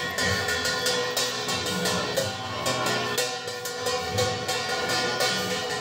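Music driven by fast metallic percussion, cymbals or bells struck over and over, with drums and a steady held tone underneath.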